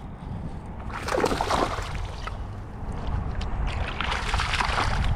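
Water splashing and sloshing at the kayak in two stretches, about a second in and again near the end, over a steady low rumble of wind on the microphone.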